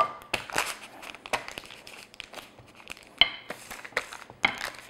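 Parchment paper crinkling and rustling in irregular crackles as a wooden rolling pin is pressed and rolled over butter folded inside it, with a short squeak about three seconds in.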